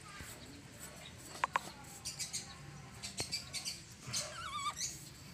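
A new diesel fuel filter canister being turned by hand onto its plastic housing on a Hyundai Accent CRDi, with two sharp clicks about a second and a half in and another near three seconds. Birds chirp and call in the background, with a wavering call near the end.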